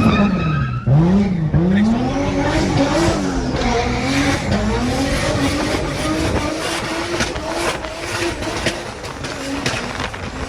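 Toyota 2JZ turbocharged inline-six in a swapped BMW E90, accelerating hard. Its pitch climbs and drops back with each gear change several times in the first few seconds, then holds steadier. A run of sharp pops follows in the second half.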